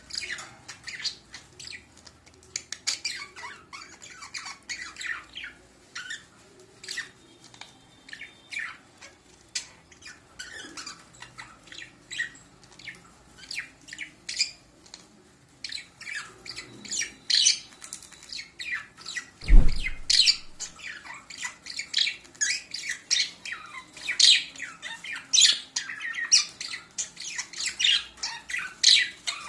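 Budgerigars chattering, a busy run of short chirps and squawks that grows busier in the second half. A single thump, the loudest sound, about two-thirds of the way through.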